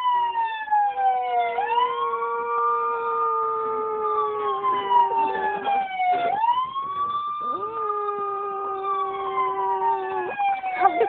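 A siren wailing, its pitch swooping up quickly then sliding slowly down, over and over, while a female dog howls along in two long, steady howls, the second starting a little past halfway.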